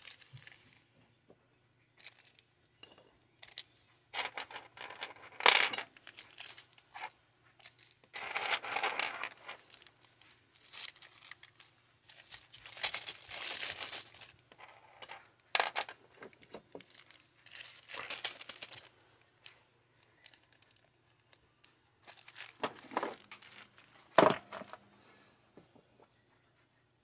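Long steel screws clinking together as they are gathered by hand off a workbench and dropped into a plastic bag, in scattered clusters of small metallic clicks and rattles, with one louder knock near the end.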